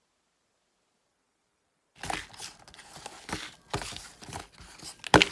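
Crinkling, rustling handling noise with scattered clicks, starting suddenly about two seconds in after dead silence, and one sharp knock near the end.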